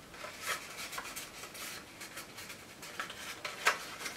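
Cardstock rustling and rubbing as a small paper box is handled and pressed together to glue it shut. Several short scrapes, with a sharper tap near the end.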